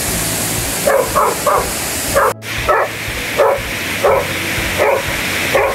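A dog barking at the water as it wades in a creek: short barks repeated about nine times at uneven intervals, over the steady rush of the creek.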